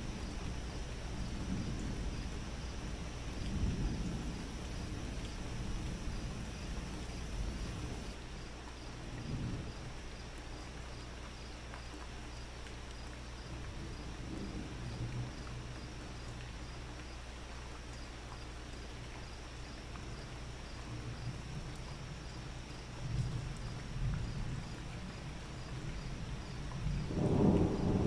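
Thunder rumbling low off and on, with a louder rumble building near the end.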